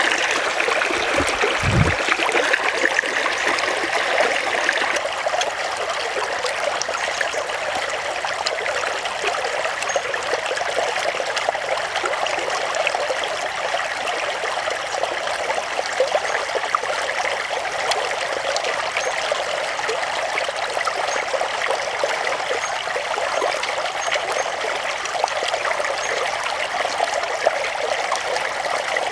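Shallow stream flowing steadily over a rocky bed, an even trickling and babbling of water.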